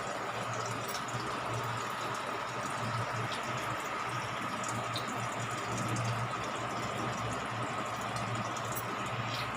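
Aquarium filter pump running: a steady rush of moving water over a low hum.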